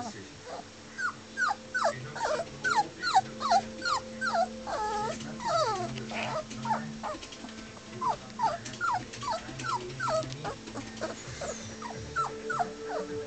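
A puppy whining over and over: short high cries that each fall in pitch, about two a second, in three runs with short pauses between them.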